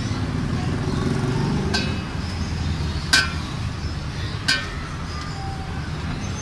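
Three sharp metallic clinks with a short ring: a large kitchen knife chopping through king mackerel steaks and striking the stainless steel basin underneath, the second and third the loudest, over a steady low background rumble.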